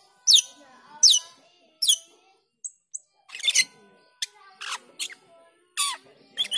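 Asian glossy starling calling: a string of sharp, high notes that each slide downward in pitch, about one a second at first, then quicker and harsher calls in the second half.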